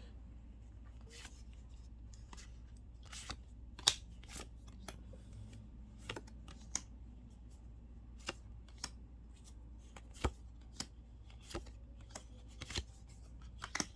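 Magic: The Gathering cards being handled and flipped through, a string of light, irregular snaps and rustles of card stock, the sharpest about four seconds in.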